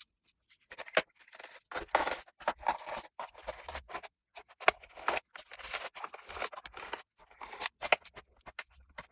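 Rapid, irregular clicks and scrapes of a screwdriver undoing the screws of a laptop's bottom case. The footage is fast-forwarded, and the sound breaks off abruptly several times.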